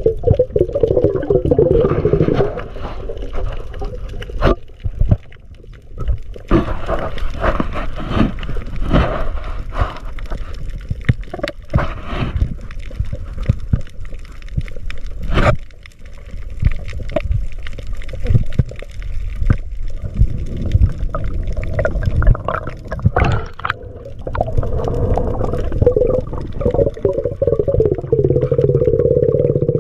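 Underwater sound picked up by a camera held below the surface: a constant low rush of moving water with gurgling, broken by many scattered sharp knocks and clicks. A wavering gurgle is louder in the first couple of seconds and again for the last few seconds.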